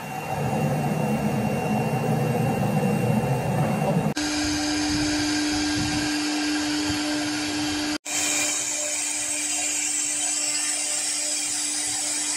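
For about four seconds a lower, rougher machine noise, then an Acctek woodworking CNC router's spindle running as it carves into MDF board: a steady whine over a cutting hiss, broken by a brief dropout about eight seconds in.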